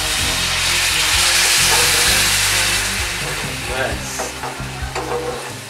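Water poured into a hot pan of octopus frying in spice paste hits the oil with a loud sizzle that swells for about two seconds and then dies down. A metal spatula then stirs through the thinning sauce.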